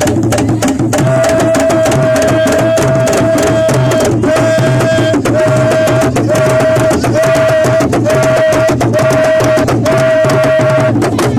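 Idoma traditional drums played in a fast, dense rhythm. A high steady note sounds over them from about a second in, first held long, then repeated in short phrases through the second half.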